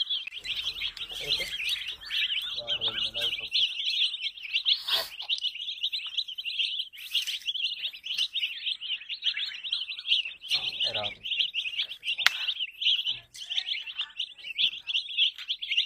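A group of baby chicks peeping nonstop, a dense chorus of rapid high peeps. A few lower murmuring sounds come through now and then, and there are a couple of brief sharp clicks.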